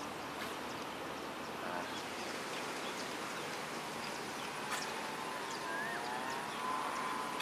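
Steady outdoor background noise with no clear single source, a few faint ticks, and a faint wavering tone in the last couple of seconds.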